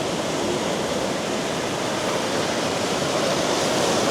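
Rapids after rain: a fast-flowing river rushing over rocks in a steady wash of water noise that swells slightly near the end.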